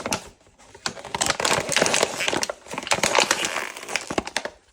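Crinkling and rustling of packaging as a replacement lawn mower air filter is unwrapped and handled, dense sharp crackles in two stretches with a brief pause between.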